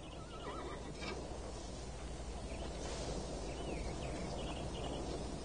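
Outdoor ambience: a steady low background rumble with a few faint bird chirps, one near the start and a short run about three seconds in.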